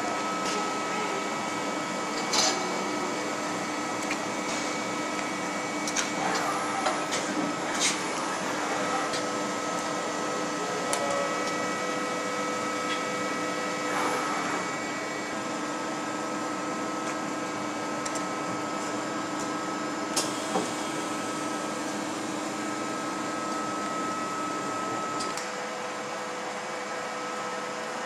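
Okuma LB 200-6 CNC lathe running, with a steady machine hum and several whining tones as its turret moves. A few sharp clicks and knocks come through it.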